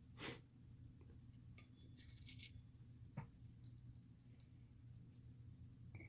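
Faint handling sounds of small screws being driven by hand into an RC crawler beadlock wheel: a short scrape, a few light metallic clicks and one sharper knock, over a low steady room hum.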